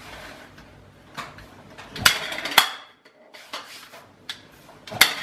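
Hard plastic toy pieces clicking and clattering as they are handled and snapped together, in a string of sharp knocks with a loud cluster about two seconds in.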